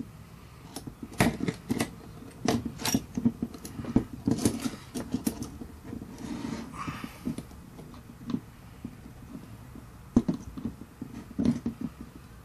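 Irregular small clicks, taps and rattles of metal and plastic parts being handled and set into a soldering helping-hands jig. The clicks come in a busy cluster for the first few seconds, ease off, then pick up again near the end.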